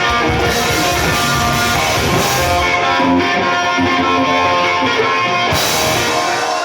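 Live rock band playing loudly and steadily, with electric guitar to the fore over drums and bass.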